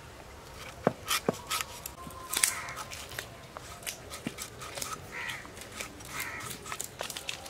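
Knife peeling and slicing a raw green mango, irregular sharp clicks and scrapes of the blade through the firm fruit. A few short animal calls sound in the background.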